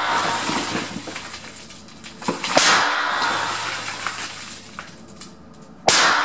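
Two 12-gauge shotgun slug shots from a Hatsan Escort, about three seconds apart, each followed by about two seconds of echoing decay. The tail of an earlier shot is still dying away at the start.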